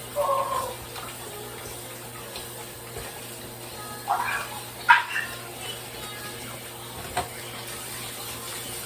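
Kitchen tap running steadily into a sink as raw shrimp are rinsed and rubbed clean by hand. A few short louder sounds come near the start and again about four to five seconds in, and a sharp click about seven seconds in.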